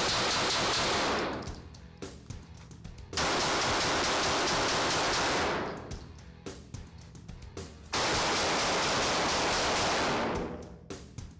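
Shots from a Smith & Wesson M&P M2.0 Compact pistol: three loud blasts about four seconds apart, each starting suddenly and lingering about two seconds before fading away, over background music.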